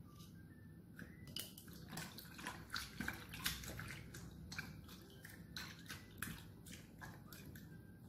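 Faint, irregular small wet splashes and clicks as a hand stirs and presses wood ear mushrooms in a pot of water.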